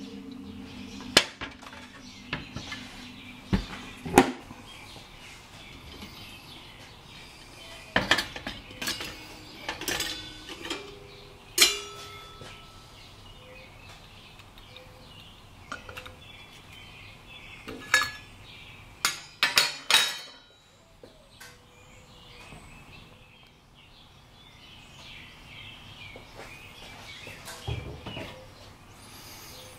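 Metal parts of a stainless steel stovetop coffee percolator (pot, basket and stem) being handled and set down: scattered clinks and clanks of metal on metal, a dozen or so separate knocks with pauses between.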